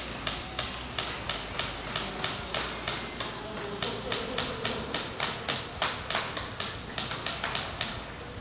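Airsoft guns firing single shots in a steady stream, about three to four sharp snaps a second, inside a large empty concrete hall.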